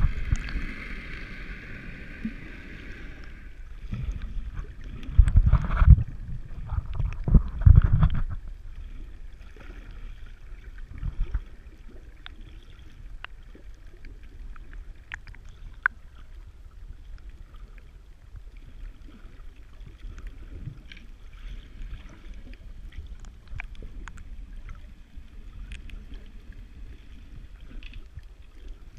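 Underwater sound picked up by a camera just below the sea surface. A rushing hiss fills the first few seconds, then a run of heavy low thumps follows, then a steady low underwater hiss with scattered faint clicks.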